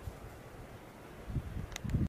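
Wind buffeting the microphone outdoors: a low, gusty rumble that grows stronger in the second half, with a couple of faint clicks near the end.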